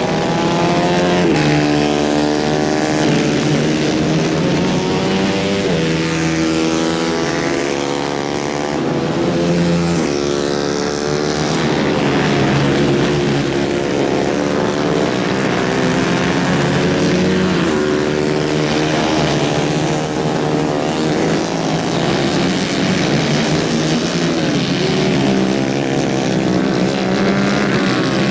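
150 cc Kayak racing kart engines revving hard, their pitch climbing and dropping every few seconds as the karts accelerate out of corners and lift off into the next.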